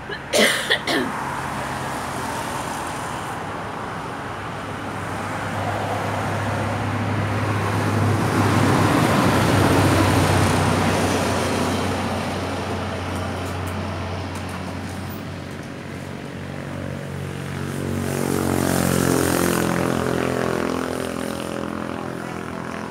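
Motor vehicle engines passing by: a steady engine hum that swells louder around ten seconds in, fades, and swells again near twenty seconds with its pitch climbing. A few sharp knocks come right at the start.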